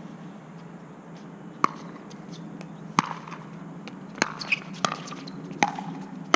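Pickleball paddles striking the plastic ball in a rally: about seven sharp, short knocks, coming quicker in the second half.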